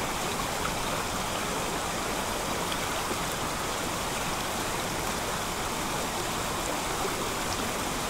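Steady rush of a shallow, rocky mountain stream with a small cascade just upstream: an even wash of running water that does not change.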